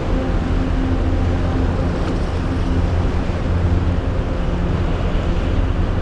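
Strong wind buffeting the microphone: a steady, loud, low rumble.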